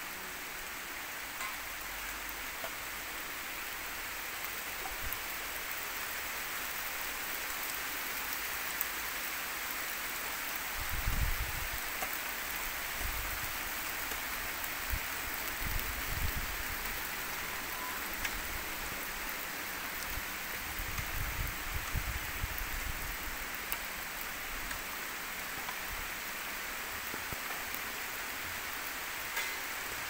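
Steady hiss of water, with a few dull low thumps about a third of the way in and again past the middle.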